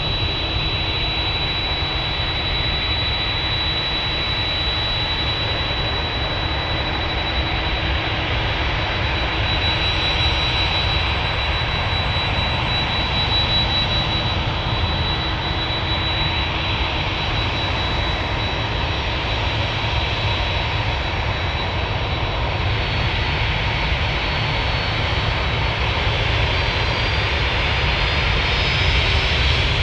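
Jet airliner engines running with a continuous rush and a steady high whine. The sound grows a little louder and the whine rises in pitch near the end.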